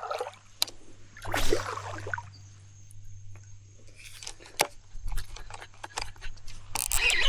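Scattered clicks and rustling handling noise, with two brief swishes near the start over a faint steady hum; a warbling pitched sound begins just before the end.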